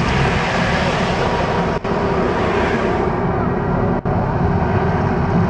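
Mirage volcano show's gas fire jets burning with a loud rushing hiss over a deep steady rumble; the hiss fades about three seconds in as the flames die down. The sound cuts out briefly twice.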